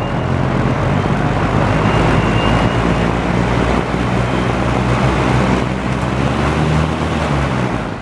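12-inch Penncrest two-speed box fan running on low speed: its 1.4-amp General Electric four-pole motor hums steadily and the blade pushes a steady rush of air, with a faint whine over it.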